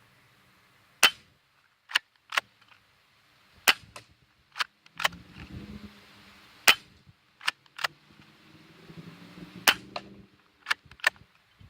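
Crosman PSM45 spring-air BB pistol being fired and its slide racked: about a dozen sharp snaps and clicks, the three loudest about a second in, near the middle and about two-thirds through. The shooter blames a faulty spring for shots that leave no BB coming out.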